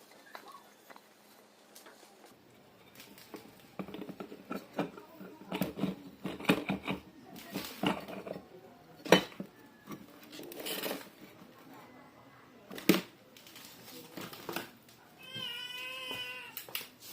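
Irregular knocks and clatter of hard parts being handled, then near the end one long, wavering high-pitched cry.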